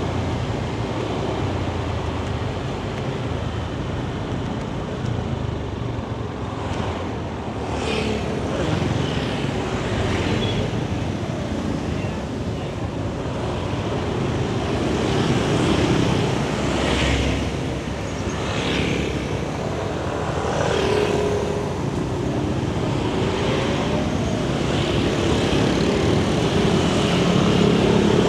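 Yamaha Nmax 155 scooter's single-cylinder engine running steadily under way, mixed with road and traffic noise, its pitch shifting slightly now and then.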